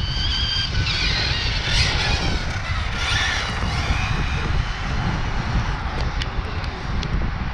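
Electric motor of a Hyper 10SC radio-controlled short-course truck, running on a 3S battery with an 18-tooth pinion, whining at speed, its pitch rising and falling as it accelerates and slows, then fading as the car moves away. Wind buffets the microphone throughout.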